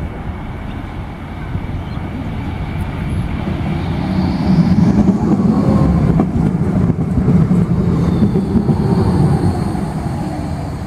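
Tram passing close by on its rails. The rumble of its wheels on the track grows from about four seconds in, is loudest as the cars go past, then eases off a little.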